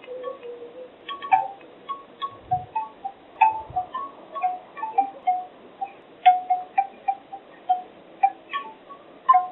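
Bamboo wind chimes: the bamboo tubes knock together irregularly, several knocks a second at a few different pitches.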